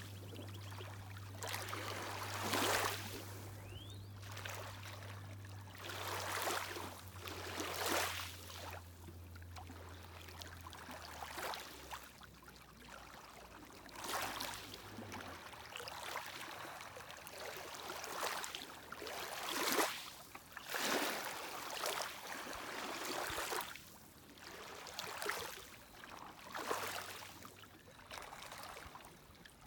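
Small lake waves washing against the shore in uneven surges every one to three seconds. Under them a distant boat motor hums low and steady, fading out about halfway through.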